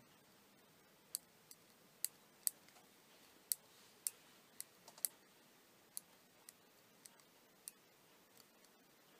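The small push buttons on a plastic digital LCD watch click under a fingertip as its settings are stepped through. There are about fifteen sharp clicks at irregular intervals, roughly two a second.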